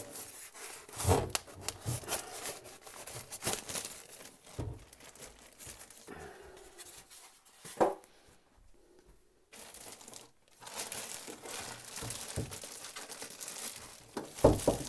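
Plastic bag and styrofoam packing being handled as a computer is unpacked: irregular crinkling and rustling, with a few sharper knocks, one about a second in, one near the middle and one near the end.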